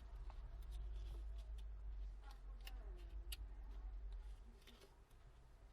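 Faint, scattered clicks and taps of small phone parts being handled and pressed into place while reassembling a smartphone, over a low hum that drops away a little after four seconds.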